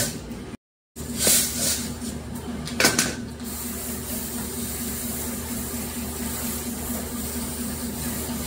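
A heap of small gold-plated steel screws being swished and spread by hand on a sack: two louder rattles in the first three seconds, then a soft continuous rustle over a steady machine hum.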